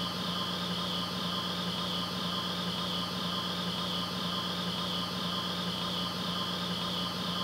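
Steady hum and hiss, machine-like: a constant low tone under a high whine that wavers about once a second.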